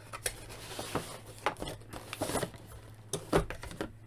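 Cardboard action-figure box and its clear plastic tray being handled: the box flap is opened and the blister tray slid out, with rustling, scraping and a series of short knocks, the loudest about three and a half seconds in.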